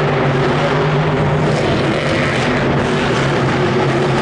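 Monster truck's supercharged V8 engine running loud at a steady pitch as the truck drives across the dirt floor.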